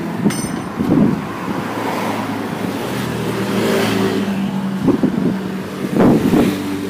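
A motor vehicle engine running, its steady hum strongest in the middle, over street noise.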